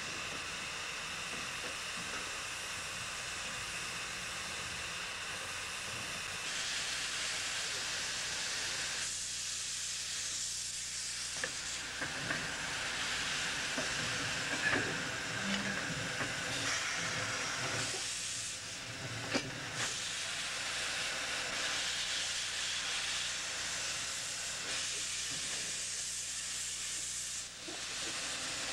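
East Broad Top No. 14 steam locomotive hissing steam as it moves slowly, steam venting from its cylinder cocks. The hiss grows louder about six seconds in and eases off twice, with a few short sharp knocks.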